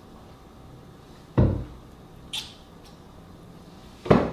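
Two dull thumps about three seconds apart, with a brief faint hiss between them, over a quiet room.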